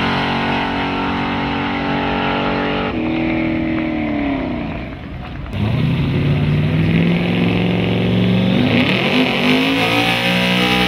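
Drag car engine at full throttle holding a steady high pitch, then falling in pitch as the driver lets off. After a cut, an early-1950s Ford pickup race truck's engine revs up, climbing in pitch, and holds high as its rear tyres start to spin and smoke in a burnout.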